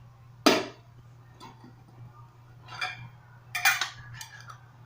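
Sharp clinks and knocks of small hard objects being handled: one loud click about half a second in, then a few fainter clatters near the end, over a faint steady low hum.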